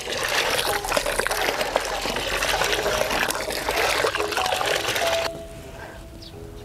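Water pouring from a plastic pipe into a plastic bucket, a steady splashing stream that cuts off about five seconds in.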